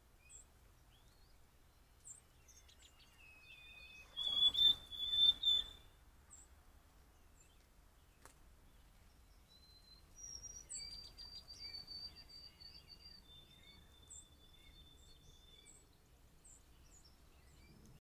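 White-throated sparrows singing their clear whistled songs: a lower note stepping up to a held high note broken into quick repeats, loudest about four seconds in and again from about ten seconds. Other small birds chip and tweet in the background, and a short burst of noise sits under the loudest song.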